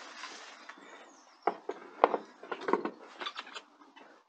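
Scattered sharp knocks and clicks of an alloy wheel being lifted and lined up on a van's wheel hub, the loudest knock about two seconds in.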